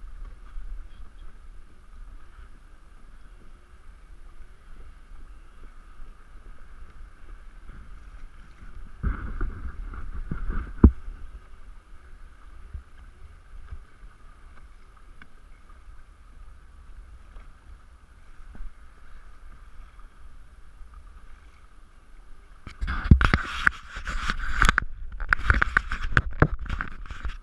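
Hobie Outback kayak moving across calm water: a steady low rumble of water along the hull, with two spells of louder rushing noise, one about a third of the way in and a longer one near the end.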